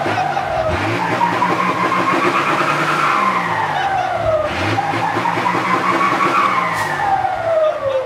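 Big diesel truck engine revved twice through its large exhaust pipe, each time rising in pitch over a few seconds and then falling back.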